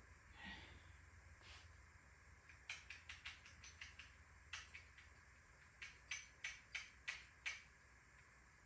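Irregular light clicks and taps of hand tools and small metal bicycle parts being handled, in a scattered cluster about three seconds in and a quicker run of sharper clicks near the end.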